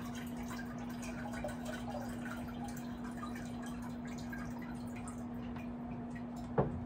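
Liquid dripping and trickling from an upturned container through a sieve into a saucepan, over a steady low hum. A single sharp knock comes near the end.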